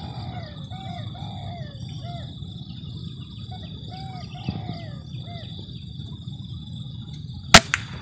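A single sharp crack of an uklik, an Indonesian-made PCP air rifle, firing about seven and a half seconds in. Before the shot a steady high insect drone runs underneath, and a bird calls repeatedly in short rising-and-falling notes.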